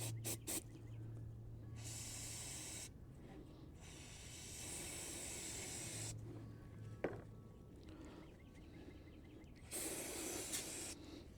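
Three hissing bursts of pressurised spray, each about one to two seconds long, with a single sharp click between the second and third.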